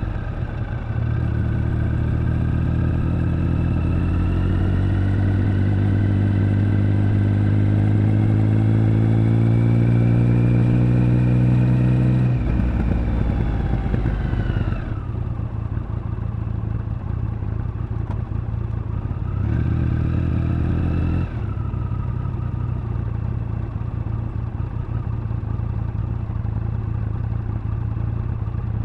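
Triumph Speed Triple 1050's inline three-cylinder engine under way. It pulls hard with its pitch rising steadily for about ten seconds, then drops sharply as the throttle closes. It gives one short burst of throttle about two-thirds of the way in and otherwise runs steadily at lower revs.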